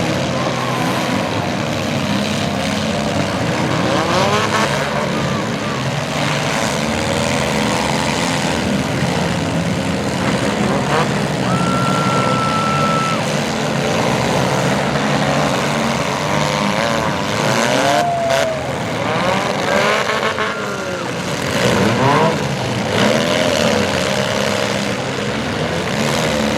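Several front-wheel-drive demolition derby cars' engines revving up and down together, with a few sharp knocks from cars hitting each other and a short steady tone near the middle.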